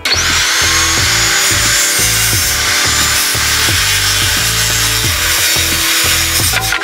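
Skilsaw circular saw ripping through a pine board. It starts abruptly with a brief rising whine, runs steadily through the cut, and stops near the end as its pitch falls.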